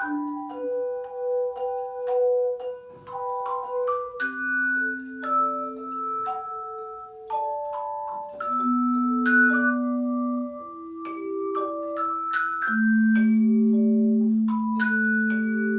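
Tone chimes playing a slow melody: single struck notes that ring on with long sustains, often two or three sounding together. A loud low note is held for about three seconds near the end.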